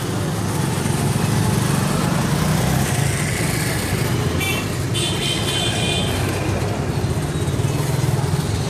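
Busy street traffic: motorcycle engines running and passing at low speed, with crowd chatter. About halfway through, a vehicle horn gives two short high beeps, the second a little longer.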